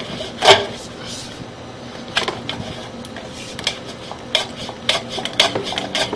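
Sewer inspection camera rig being pushed and pulled in a cast iron drain line: irregular sharp knocks and metallic clatter, several in quick succession near the end.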